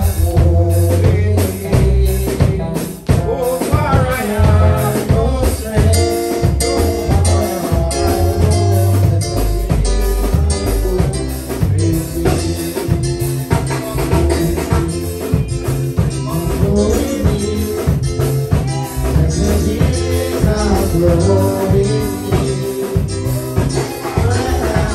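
Gospel song with singing over a band: a steady drum beat and a moving bass line under the voices.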